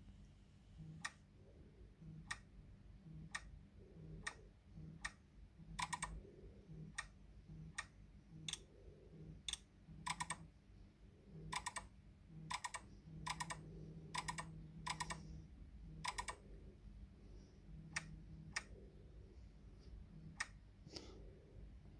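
Smartphone counter app playing its simulated plastic-counter click each time a dial steps, a couple of dozen sharp clicks at uneven spacing, sometimes in quick pairs. Many clicks come with a short low buzz from the phone's vibration motor.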